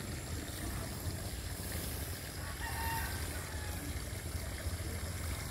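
A rooster crowing faintly about two to three seconds in, over a steady low rumble.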